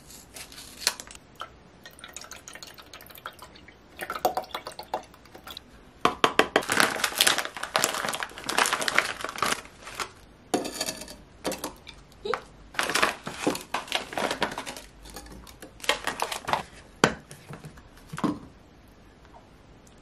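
Scissors snip open a milk carton, then milk is poured into a blender jar of whey with a liquid pouring and splashing sound. In the second half a plastic bag of frozen mango rustles and pieces drop into the jar in short bursts.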